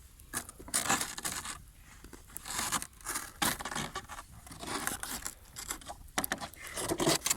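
Irregular scraping and rustling as objects are shifted and handled, in short uneven bursts.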